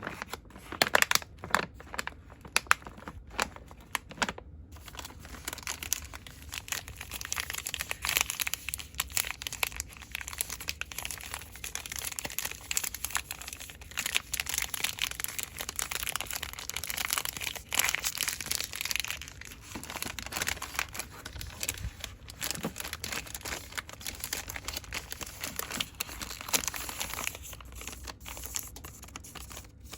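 Fast, vigorous crinkling and rustling of cosmetics packaging handled close to the microphone. For the first few seconds it comes as separate sharp crackles, then as dense, continuous crinkling.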